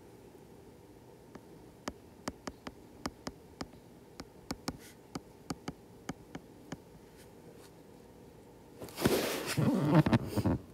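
Stylus tip tapping and clicking on a tablet's glass screen during handwriting: a quick, uneven run of sharp ticks. Near the end comes a louder rough noise lasting under two seconds.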